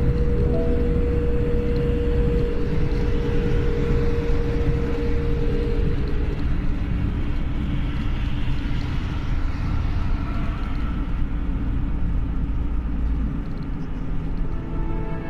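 Road traffic noise: a steady low rumble of engines and tyres on asphalt. A lorry passes at the start, with a steady hum that fades out about six seconds in. A car passes about eight seconds in.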